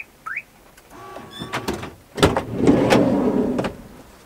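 Sliding side door of a VW T4 van being opened: a few short squeaks from the handle and latch, then about two seconds in a loud rolling rumble along its track with sharp clicks, lasting about a second and a half.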